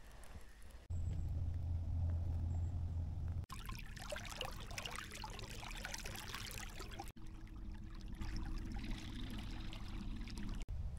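A kayak under way: a steady low hum from its electric trolling motor, broken for a few seconds in the middle by loud churning, rushing water along the hull.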